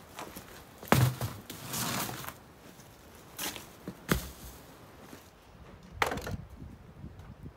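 Plastic-wrapped tyres set down and stacked on hard ground: a heavy thud about a second in, a stretch of plastic crinkling, then a few sharper knocks, the last near the end.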